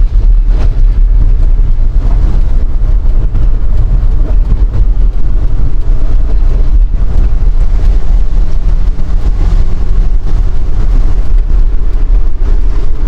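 Strong wind buffeting the microphone of a moving vehicle: a loud, continuous low rumble with engine and road noise beneath it.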